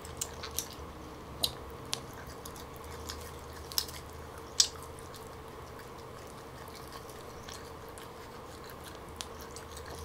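Close-miked eating: soft chewing of smoked turkey leg meat with a few sharp mouth clicks and smacks, most of them in the first five seconds, the loudest near the middle.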